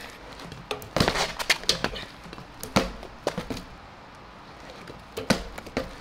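BMX bike being ridden flatland on pavement: a series of sharp knocks and clacks from the bike and its tyres, the loudest about a second in, near three seconds and just past five seconds.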